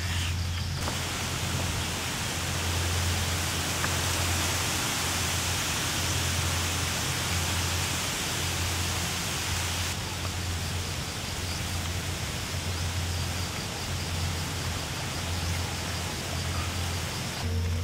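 Steady rushing outdoor noise with a low rumble underneath, holding even throughout.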